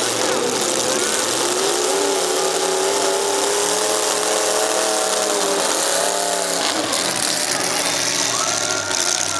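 Lifted mud truck's engine revving hard over a loud steady roar. Its pitch climbs, is held for several seconds, then drops back.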